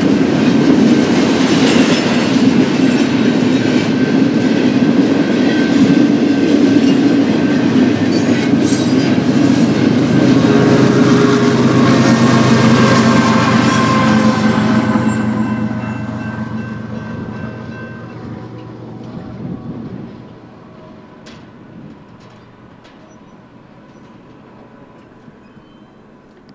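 BNSF intermodal freight train's cars rolling past on the rails, a loud steady rumble that fades away over about five seconds, a little past halfway, as the train moves off.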